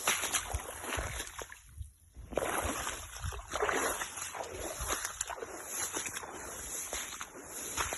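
Irregular splashing and sloshing of shallow flood water, like someone wading through a waterlogged field.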